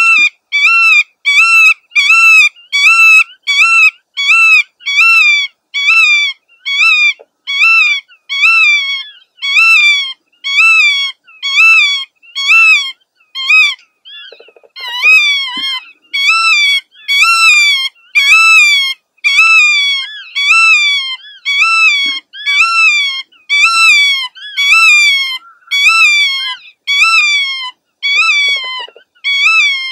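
Black-tailed godwit calling loudly over and over, about two calls a second, each call rising and then falling in pitch, with a brief break about halfway through.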